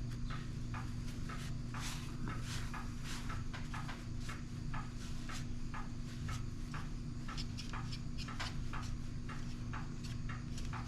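Short, irregular scraping and scrubbing strokes, about two or three a second, as rust is worked off a rusty one-hand maple-sugaring tool. A steady low hum runs underneath.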